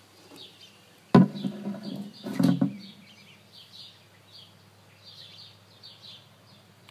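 Small birds chirping softly in the background. A sharp knock comes about a second in, and a second clatter follows about a second and a half later, as the glass tank's lid is handled.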